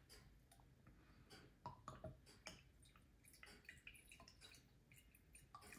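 Very faint handling clicks at the neck of a wine bottle as a pourer is fitted, then white wine quietly trickling from the bottle into a glass.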